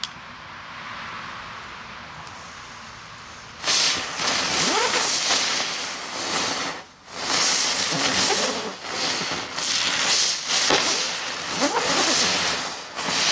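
Jumping jack ground-spinner fireworks: a faint steady hiss, then about three and a half seconds in a sudden loud rushing hiss that wavers in pitch as they spin. It drops out briefly about halfway through and then starts again.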